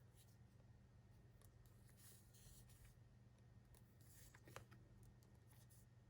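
Near silence: a faint steady room hum with a few soft rustles of sticker packets being handled.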